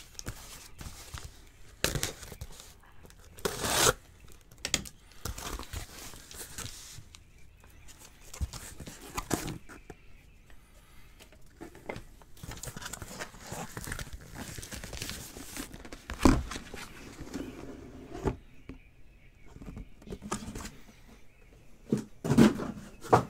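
Cardboard shipping case torn open by hand: irregular ripping and crumpling of cardboard, with several sharp knocks as the case and the boxes inside are handled.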